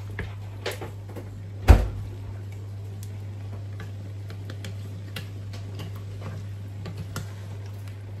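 Wooden spatula stirring meat in a pot, knocking and scraping against the pot in a run of small irregular clicks, with one much louder knock about two seconds in. A steady low hum sits underneath.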